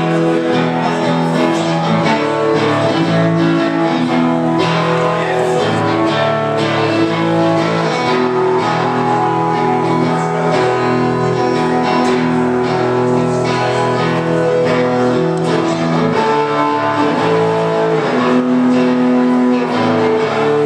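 Live performance of a rock song led by guitar, a steady stream of held chords and notes.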